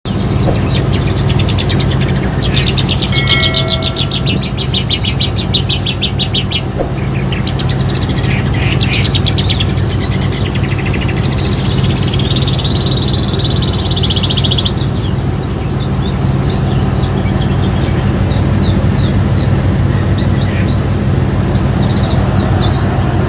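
Caged songbird singing loudly in long runs of rapid trills, then sharp separate chirps near the end, over the steady low hum of the boat's engine.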